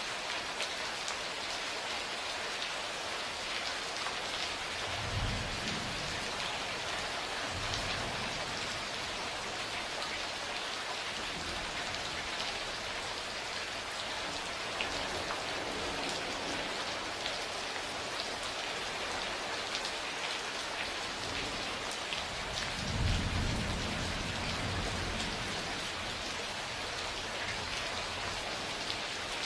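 Steady rain falling, with thunder rumbling twice: a shorter roll about five seconds in, and a stronger, longer one about two-thirds of the way through.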